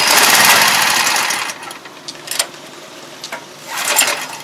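Recoil pull-starter of a pressure washer's small petrol engine pulled twice, at the start and again about four seconds in, the engine turning over without catching; the fuel cock has been left shut.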